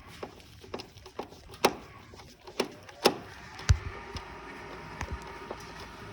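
Irregular clicks and knocks of tools and metal furnace parts being handled and fitted back together, a few sharp ones standing out. A faint steady hum runs under the second half.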